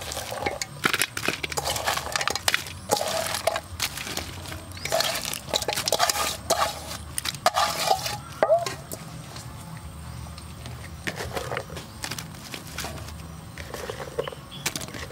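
Chopped banana flower pieces tipped from a metal bowl into an aluminium wok, clattering and knocking against the metal, with the bowl clinking on the rim. The clatter is densest in the first nine seconds, and a few lighter knocks follow as onion and other sliced vegetables drop in near the end.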